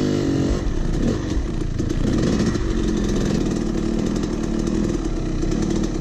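Dirt bike engine running at a steady throttle while being ridden, its pitch wavering only slightly.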